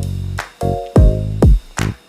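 Background electronic music with a deep booming kick drum and bass beat.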